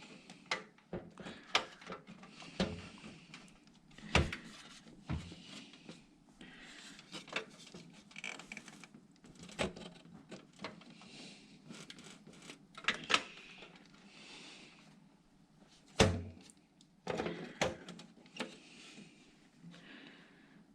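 Irregular clicks, knocks and scraping from a motherboard being handled and shifted inside a computer case to line its mounting holes up with the standoffs, with the loudest knock about three quarters of the way through.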